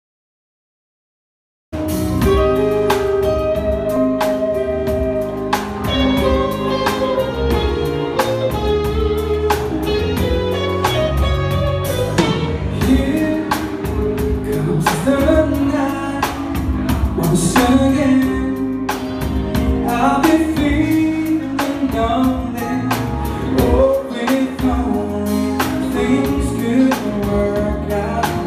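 Live band with a male lead singer on a microphone, backed by electric bass, drum kit, keyboards and guitar. Silent for the first couple of seconds, then the music cuts in suddenly at full level.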